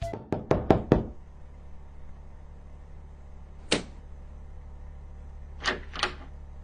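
A husky jumping up at a closed door and pawing at its handle: two sharp knocks of paws striking the door near the end, with a single knock a couple of seconds earlier. A quick run of sharp clicks opens the first second, and a low steady hum runs underneath.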